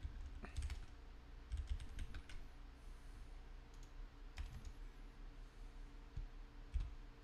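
Faint computer keyboard and mouse clicks, scattered in small clusters, over a low steady hum.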